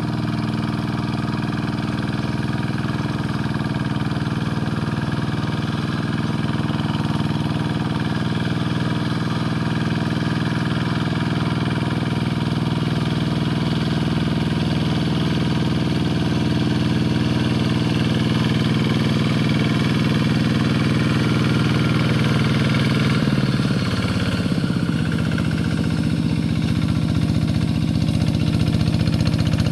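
Rice-paddy tractor engine running steadily under load. Its pitch dips briefly about three quarters of the way through, then picks back up.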